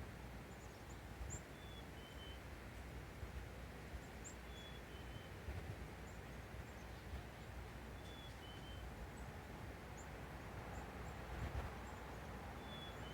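Faint outdoor ambience: a steady low rumble, with a bird whistling a two-note call, high then slightly lower, four times, and brief high chirps in between.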